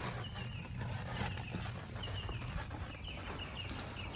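Small birds chirping in short, wavering calls again and again over a steady low hum.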